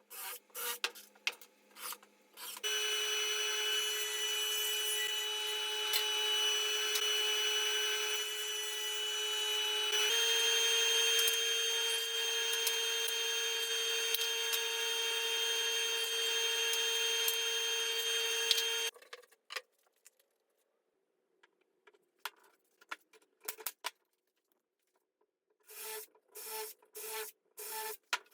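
A shop power tool running with a steady whine for about sixteen seconds, stepping slightly up in pitch about halfway through, then cutting off suddenly. Knocks and clicks of wood being handled come before and after, with a quick run of short bursts near the end.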